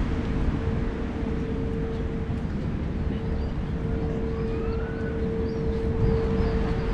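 Outdoor city street ambience: a steady low rumble of traffic with a constant hum running through it, and a few faint high chirps.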